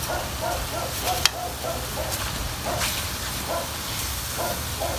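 Metal spatula stirring chicken pieces in an aluminium wok, with a sharp clink against the pan about a second in and again near three seconds, over a faint steady hiss. Behind it, an animal gives short repeated calls, about three a second.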